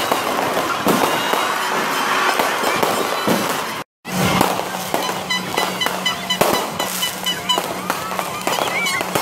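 Aerial fireworks crackling and popping in a dense, rapid stream of small bursts. The sound drops out for a moment about four seconds in, and after that a steady low drone runs beneath the crackle.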